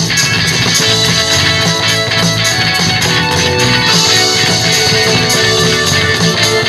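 Background music led by guitar, playing steadily.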